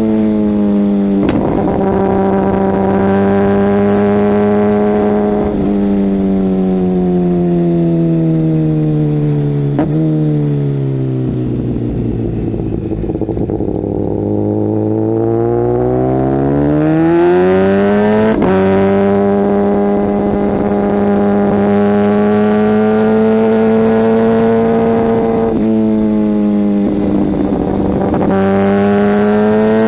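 Kawasaki ZX-10R inline-four engine through a Mivv aftermarket exhaust, running at steady revs on the move. The revs fall from about ten seconds in to a low point, then climb back by about eighteen seconds and hold steady again.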